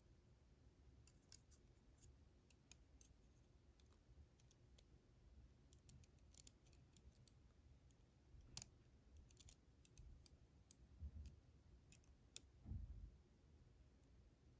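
Faint, scattered small clicks and ticks of tools and tiny metal parts being handled while loading springs and driver pins back into an American 1105 padlock, with a soft low thump near the end.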